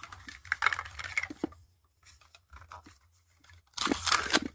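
Crinkling and rustling of the wrappers inside a Toy Mini Brands capsule as they are handled, then a louder burst of tearing near the end as a wrapper is ripped open.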